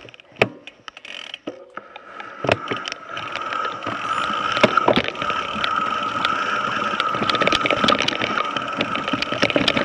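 Mountain bike's rear freehub ratchet buzzing as the bike coasts downhill, with clicks and rattles from the chain and frame over the rough dirt trail. Scattered clicks at first; about three seconds in the buzz becomes a loud, steady whine as the bike gathers speed.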